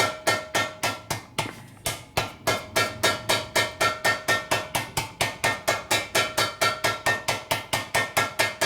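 Steel motorcycle gas tank struck rapidly and evenly by hand, about four blows a second, each blow leaving a short metallic ring. The tank is being banged down against the frame to leave a mark where it touches and needs dimpling for clearance.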